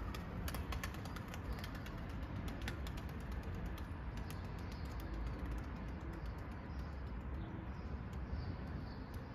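Domestic pigeons cooing faintly over a steady low rumble, with a quick run of sharp clicks in the first three seconds.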